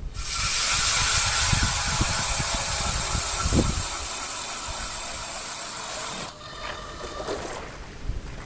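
Ice auger drilling through lake ice: a steady, harsh scraping hiss of the blades shaving ice, which cuts off sharply about six seconds in and leaves a softer scraping as the cut ends.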